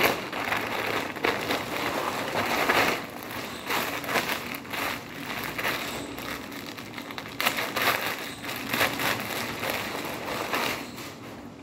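Plastic packaging crinkling as it is handled: a grey plastic courier mailer and then a clear plastic polybag around a T-shirt being pulled open, in uneven bursts of rustling.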